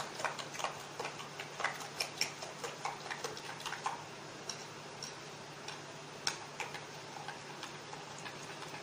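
Spoon clicking against a glass bowl while beating cream with powdered sugar. The light, irregular clicks come several a second at first and thin out after about four seconds.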